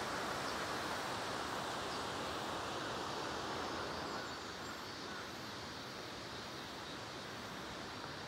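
Steady rushing of a fast-flowing river, a little quieter from about four seconds in.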